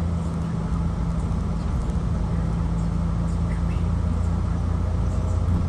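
Casino shuttle bus running along the road, heard from inside the cabin: a steady low engine drone with a held hum and road noise, and a few faint high squeaks.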